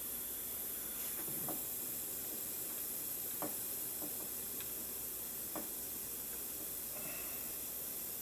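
Steady high hiss with a few faint, light ticks from soldering XT60 connector pins to a circuit board.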